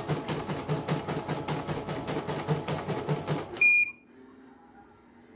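CNY portable computerised embroidery machine stitching at a fast, steady rhythm, then stopping suddenly about three and a half seconds in with one loud, short beep. The beep is its alert that the thread has run out.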